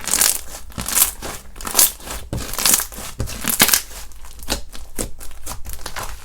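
Slime being squeezed, stretched and pressed by hand, making an irregular run of sharp crackly, crinkly squelches, with louder ones about every second.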